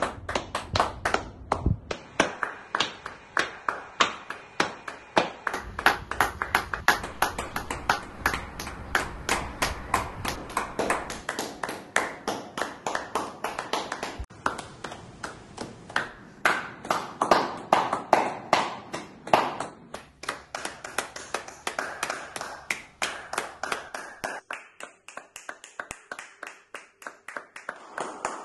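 Hands clapping in a steady rhythm, a few sharp claps a second; the claps thin out near the end.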